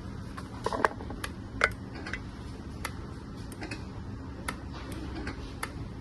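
The small hydraulic pump of a 1/14 remote-control metal wheel loader humming steadily, with irregular sharp metal clicks and ticks from the moving loader parts; two clicks about a second in stand out.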